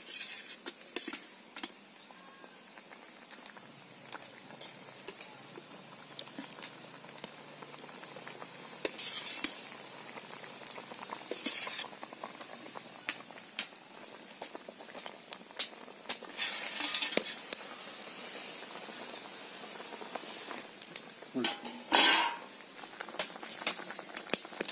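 Curry boiling and sizzling in an iron kadai, a steady bubbling hiss. Several louder spluttering bursts come through it, the strongest near the end.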